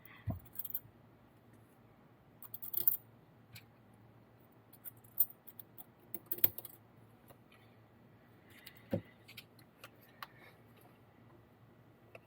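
Small metal parts and tools being handled: scattered light clicks and metallic jingles at irregular intervals, with a small cluster about two and a half seconds in.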